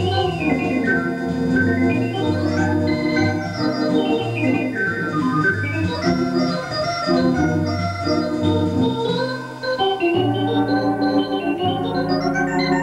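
Wersi Helios electronic home organ played in an improvisation: fast runs of notes sweeping up and down over held chords and a repeating bass line, dipping briefly about nine and a half seconds in before the full sound returns.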